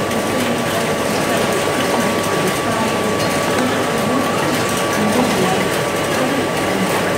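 Egg-carton inkjet printing machine running, its chain conveyor and mechanism making a steady mechanical clatter with a thin, even whine.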